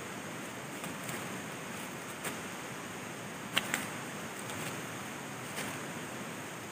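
Steady rush of a flowing river, with a few short sharp knocks over it, the loudest a quick double knock just past halfway, from a stick being worked into leaf-littered ground.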